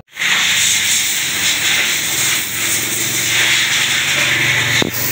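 Pressure-washer water jet spraying at a motorcycle wash, a steady loud hiss that starts abruptly, with a faint low motor hum beneath.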